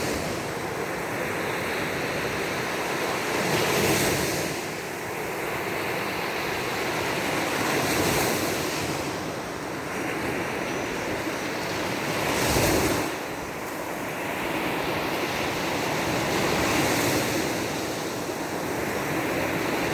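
Baltic Sea surf breaking on a beach, the waves swelling and washing in about every four seconds, one louder break about halfway through.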